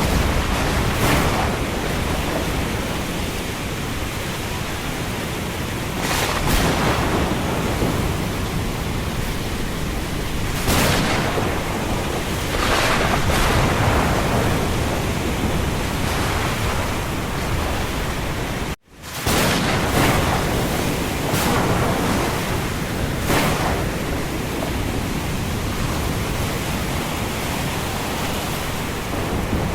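Thunderstorm: a steady rush of rain and wind with sharp cracks of thunder every few seconds. The sound cuts out for an instant about two-thirds of the way through.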